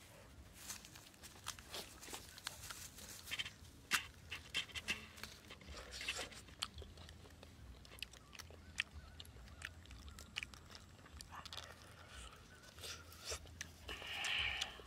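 Shell of a roasted goose egg being cracked and peeled by hand: a scatter of small crackles and clicks.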